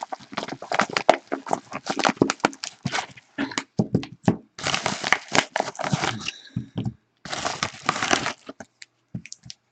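A mail package being torn open and its packaging handled: irregular crinkling, crackling and tearing, with denser rustling a little past the middle and again near the end.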